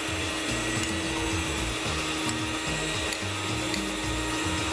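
Electric hand mixer running steadily, its beaters whirring through creamed butter and icing sugar in a bowl, with a constant motor hum.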